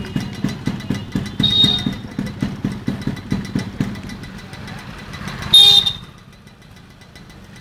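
Yamaha RX100's two-stroke single-cylinder engine idling with an uneven pulse, growing quieter after about four seconds. A short high beep sounds about one and a half seconds in, and a louder one near six seconds.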